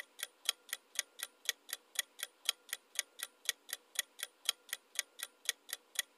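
Clock-ticking sound effect for a quiz countdown timer: rapid, even ticking at about four ticks a second while the seconds run down.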